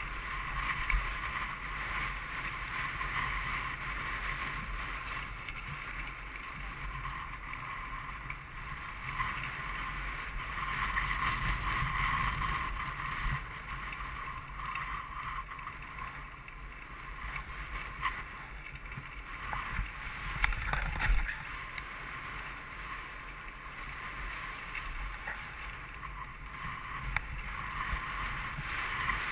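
Wind rushing over a helmet-mounted camera as a mountain bike rolls fast down a paved path, with tyre noise on the asphalt. A few sharp knocks from bumps about two-thirds of the way in.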